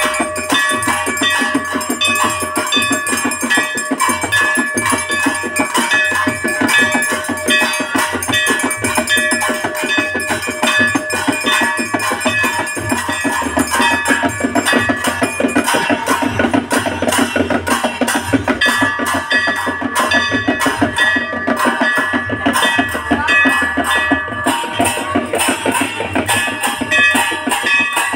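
Devotional aarti music: fast, steady drumming with bells ringing throughout.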